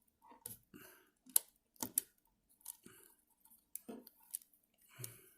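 Irregular small plastic clicks and taps as the parts of an Nvidia Shield TV 2017 controller are handled and pressed into place in its shell.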